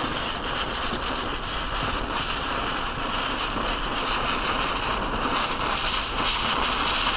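A 1.8 mm waterproof visco fuse burning down, giving a steady spark-spitting hiss with faint crackles.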